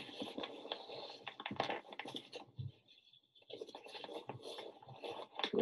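Rustling and scraping of a loaded hunting backpack's fabric and straps as it is handled and adjusted, in irregular bursts with a short lull about halfway.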